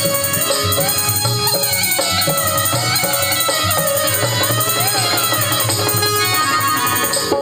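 Indian folk-song music: a wavering melody line over a steady, evenly repeating percussion beat.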